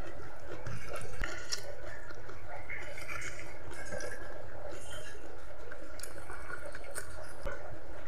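Small wet squishing and sticky clicks of a bare hand working rice into chili-sauced chicken feet, with light mouth sounds of chewing, over a steady background hiss.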